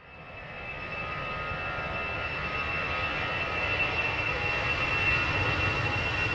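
Jet airliner engines running, a steady low rumble with a high whine over it, fading in over the first couple of seconds and then holding steady as the plane approaches.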